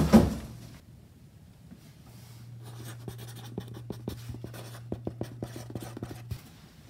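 Marker pen writing on a cardboard box: a quick run of short strokes starting about two and a half seconds in and stopping just after six seconds. A thump fades out at the very start.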